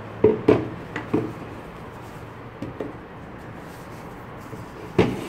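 Handling noise from unpacking a kit: a cardboard box and foam packing being moved and items set down on a wooden table, with a few sharp knocks in the first second, two light ones midway and a loud knock near the end.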